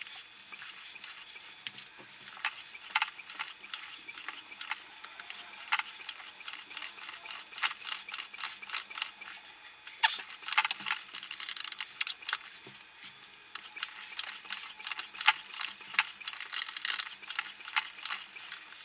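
The lever of a hand-operated pressure test tank pumped over and over, making rapid, irregular metallic clicks and clacks as pressure is built up in the water chamber.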